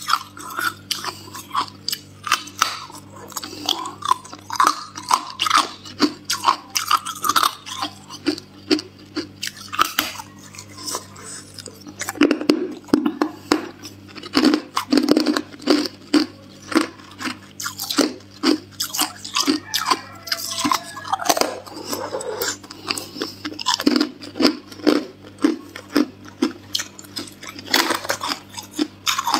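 Hard clear ice being bitten and chewed: a steady run of sharp, crackling crunches, with a stretch of louder, deeper crunches about halfway through.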